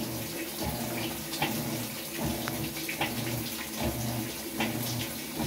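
Vertical modular top-load washer agitating in short strokes on a freshly replaced gearcase, churning a little water in the tub over a steady motor hum with a repeating rhythm.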